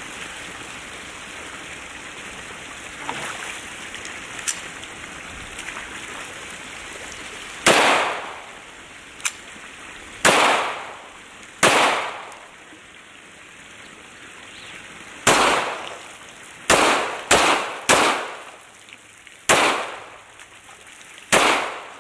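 Hi-Point .40 S&W pistol firing nine shots at an uneven pace, the first about a third of the way in and three of them in quick succession near the end. Between the shots, water runs steadily over a small weir.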